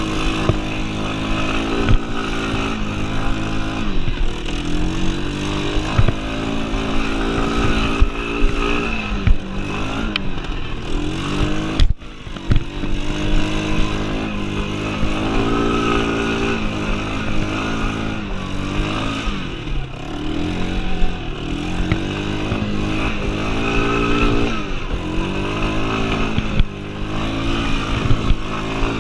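Yamaha Breeze 125 ATV's single-cylinder engine under way, its pitch climbing and falling again and again as the throttle is worked, with scattered knocks. The sound breaks off for a split second near the middle.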